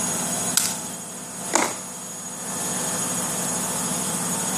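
Two crisp snaps about a second apart as yardlong beans (sitaw) are broken and trimmed by hand, over a steady hiss.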